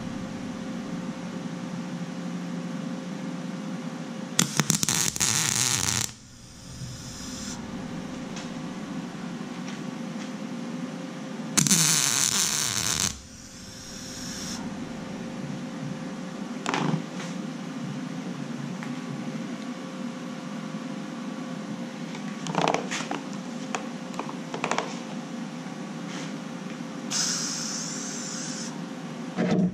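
MIG welder making three short welds on a steel bar held in a vise: crackling arc bursts of about a second and a half each, one about four seconds in, one in the middle and one near the end. A steady hum runs underneath, with a few light taps between the welds.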